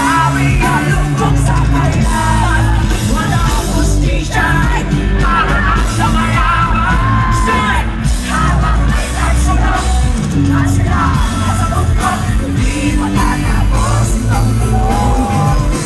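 Live rock band playing loudly with a sung vocal line, heavy bass, and the crowd yelling and whooping, heard from within the audience.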